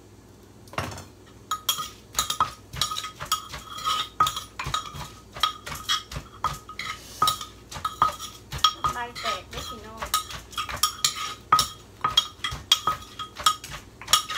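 A wooden pestle pounds in a mortar at about two to three strokes a second, each stroke with a short ringing clink, while a metal spoon turns and scrapes the mix. This is papaya salad being pounded and tossed.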